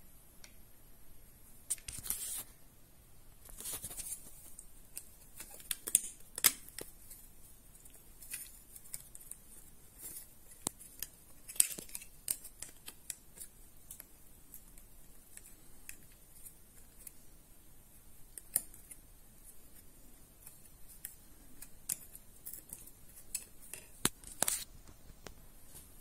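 Handling noise from fitting a security alarm control panel onto its plastic wall back plate: scattered sharp plastic clicks and a few short scrapes.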